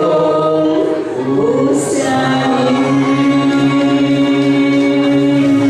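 Pop duet singing with backing: voices glide and then hold one long note to the end.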